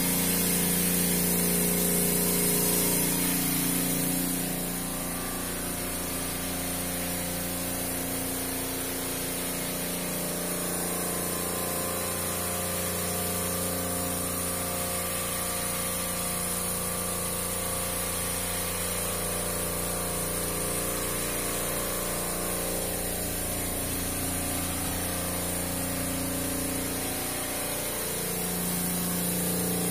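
Industrial motor-and-pump machinery running steadily: a constant hum of several tones with a hiss over it.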